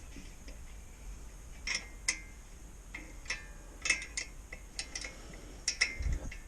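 Irregular metallic clinks and taps of hand tools and bolts being handled while fitting a fender to the mini bike, a few sharp clicks at a time with short pauses between.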